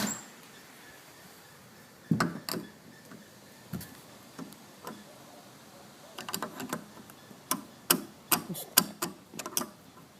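Scattered sharp clicks and taps of a hand tool working on the metal of a door closer, a few at first and then a quick run of them in the second half.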